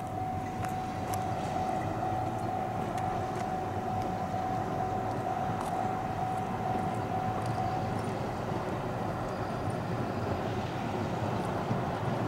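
Distant Ohmi Railway electric train running toward the camera, a steady low rumble. A thin steady tone sounds over it and fades out about eight seconds in, with a few faint high clicks.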